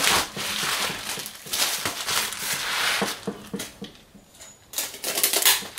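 Larger-bubble wrap crinkling and rustling as it is folded around an instrument case and pressed down by hand. It dies down about four seconds in, then comes one more burst of crinkling.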